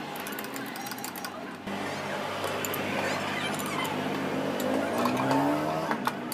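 A motor vehicle running past, its engine note rising near the end, with a few light metallic clicks from hand tools as the rocker assembly bolts are tightened.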